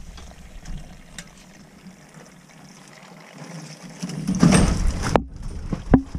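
Kitchen sink waste water running out of an opened cast iron drain line: a faint trickle, then a louder splashing rush about four seconds in that lasts about a second and breaks off suddenly. Someone upstairs ran the kitchen sink while the line was open.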